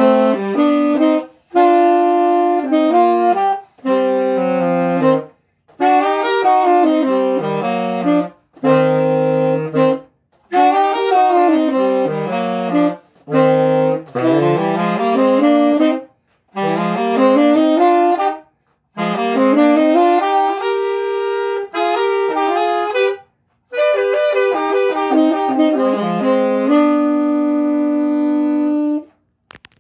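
Two saxophones playing a dense, fast written passage together in short phrases broken by quick breaths, ending on a long held note near the end.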